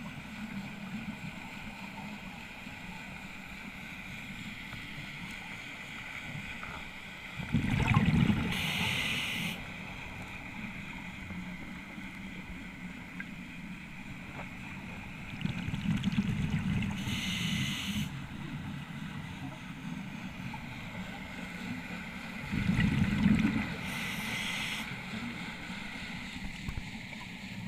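Scuba diver breathing through a regulator, heard underwater: three breaths about seven seconds apart, each a low bubbling rush of exhaled bubbles with a short hiss, over a steady muffled background.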